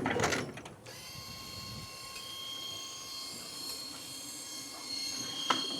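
Steady motor whine with several high tones, starting about a second in, from the SDLANCH SDLLM500 remote-controlled tracked mower as its dozer blade is lowered; a short click near the end.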